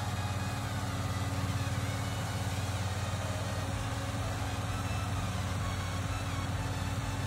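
Large farm tractor's diesel engine running steadily.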